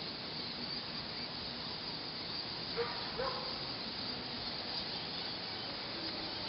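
Steady din of a roosting colony of Geoffroy's rousette fruit bats in a cave, with two short squeaks about three seconds in.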